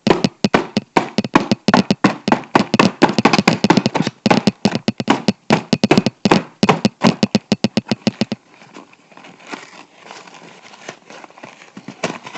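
Scissors working at cardboard-and-plastic toy packaging: a rapid run of sharp clicks and knocks, about five a second. About eight seconds in it stops abruptly, leaving faint rustling.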